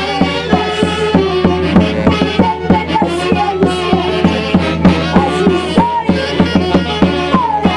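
Live band music: a melody line with slides over a fast, steady beat.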